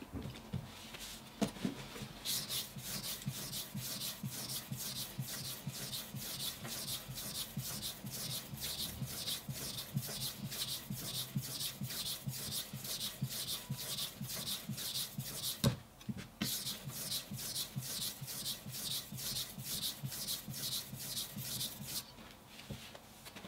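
Kitchen knife blade stroked back and forth on a wet whetstone, an even rhythmic scraping at about three strokes a second. A single knock about two-thirds through breaks the strokes for a moment; they resume and stop shortly before the end.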